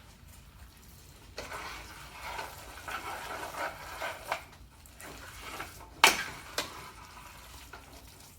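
Fried rice being stirred and scraped around a frying pan with a spatula, followed about six seconds in by a sharp knock and a smaller one, like the utensil tapping the pan.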